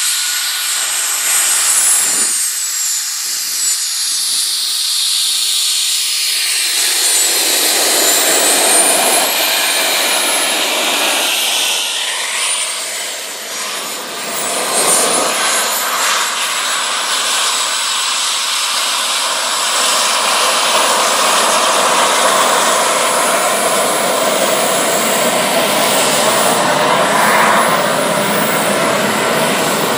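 Twin JetCentral Super Eagle model turbine engines of a large RC F-4 Phantom running as it taxis, a high whine gliding up and down in pitch with the throttle. A fuller rush of jet noise builds in from about seven seconds in.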